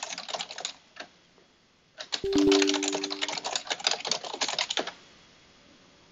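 Typing on a computer keyboard: a short run of key clicks at the start, then a longer, faster run from about two seconds in until nearly five seconds. A brief steady low two-note tone sounds under the typing about two seconds in.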